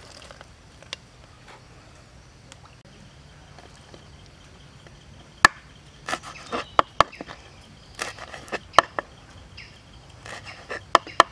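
Kitchen knife cutting raw shrimp on a wooden cutting board: sharp, irregular knocks of the blade hitting the board, starting about five seconds in.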